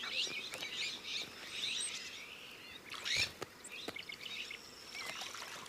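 Small songbirds chirping and twittering, many short quick calls overlapping, with one louder call sweeping downward about three seconds in.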